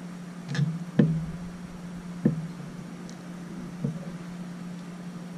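A few sharp taps and knocks, the loudest about a second in and another a little after two seconds, from fingers tapping the touchscreen of a Spektrum DX6R radio transmitter and handling it. A steady low hum runs underneath.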